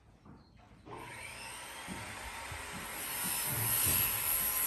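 Power saw cutting through the wooden boards of a stall wall under repair, starting about a second in as a steady high whine that grows louder.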